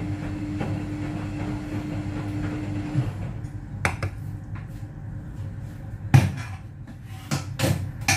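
Kitchen clatter: a plastic ladle scooping cherry tomatoes out of a cooking pot and knocking against the pot and plate, followed by several sharp knocks and clunks, the loudest about six seconds in. A steady hum runs underneath and stops about three seconds in.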